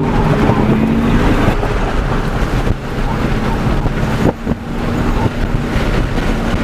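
A moving car: engine hum and road noise, with wind buffeting the microphone.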